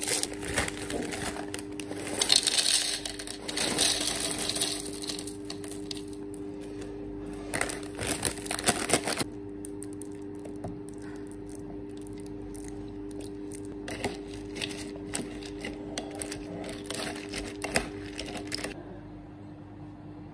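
Koko Krunch chocolate cereal poured into a bowl, the flakes clattering and rattling densely for the first nine seconds. Milk is then poured over the cereal, with softer, scattered clicks and splashes. A steady low hum runs underneath.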